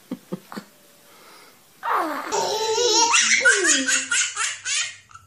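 A young child laughing hard: a long run of quick, high-pitched laughs that starts about two seconds in. A few faint taps come just before it.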